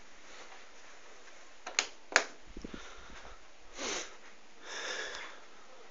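Two sharp clicks close together, then a person sniffing twice in a small room, the second sniff longer.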